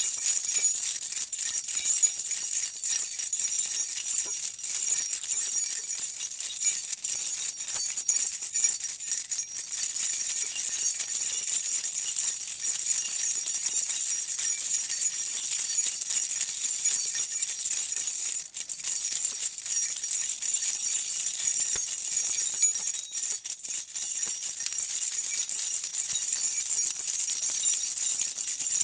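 A bunch of metal keys being shaken and jangled continuously in a dense, steady jingle, with a brief break about eighteen seconds in.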